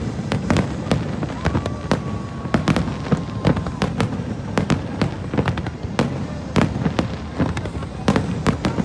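Aerial fireworks going off in quick succession: many sharp bangs and crackles over a continuous low rumble, with a thin held whistle for a couple of seconds near the start.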